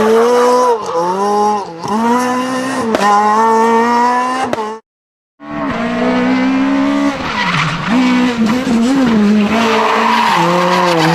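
Toy remote-control car's electric drive motor whining, its pitch dipping and climbing again and again as it slows, stops and speeds off. The sound cuts out completely for about half a second near the middle.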